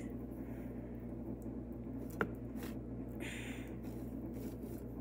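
Quiet handling sounds of a spoon spreading butter on bread: a sharp click about two seconds in and a brief scrape a little after three seconds, over a steady low hum.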